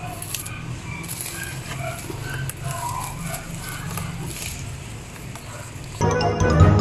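Steady low hum with scattered short chirps. Music starts abruptly near the end.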